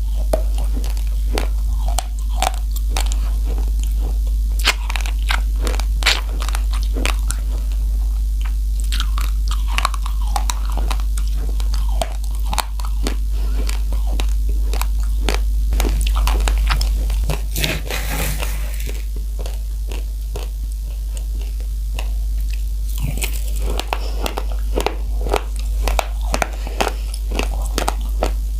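Raw rice grains being bitten and chewed close to the microphone, a dense run of sharp crunching cracks, over a steady low hum.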